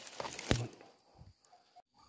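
A single suppressed shot from a PCP air rifle, a sharp crack with a low thump, about half a second in. Faint outdoor insect and bird sounds run underneath.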